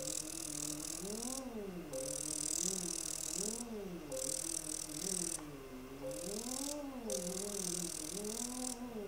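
Phacoemulsification machine, a Zeiss Visalis 100, sounding its feedback tones during nucleus removal: a tone that rises and falls in pitch about four times as the aspiration vacuum builds and releases, with a high hiss switching on and off every second or two.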